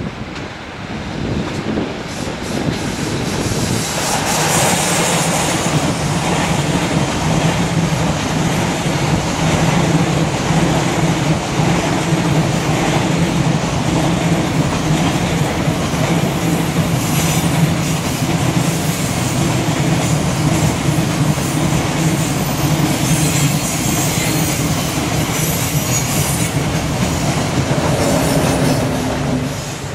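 Container freight train behind an electric locomotive passing close by, its wheels clattering over the rail joints and swelling to a steady loud rumble within the first few seconds. High-pitched flange squeal from the wheels breaks in a few times.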